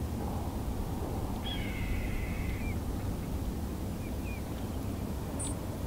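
A bird's raspy call about a second long, ending in a short downward slide, followed by a few faint chirps, over a steady low rumble.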